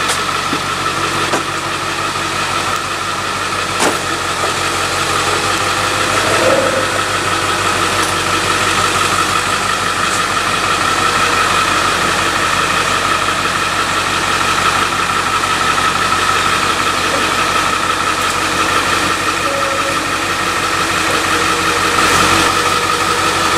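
Ford F-350's diesel V8 idling steadily while the truck creeps backward in reverse.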